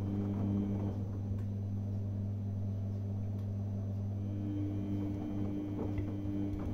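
Samsung front-loading washing machine in the main wash of a Cottons 30° Intensive cycle: a steady motor hum as the drum tumbles the laundry. The higher motor tone drops away about a second in and returns about four seconds in as the drum turns again, with a few faint clicks near the end.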